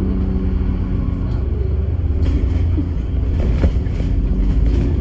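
Vehicle engine running, a steady low rumble with a hum that weakens about two seconds in.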